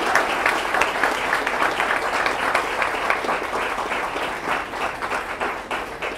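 Wedding guests applauding, many hands clapping at once, the clapping slowly dying away near the end.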